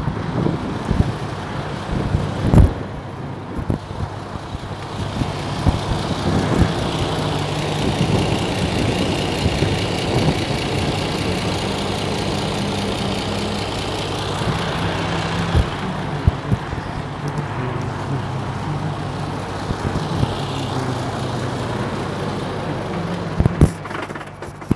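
Lorry's diesel engine idling close by, a steady low drone, with footsteps on gravel in the first few seconds and again near the end.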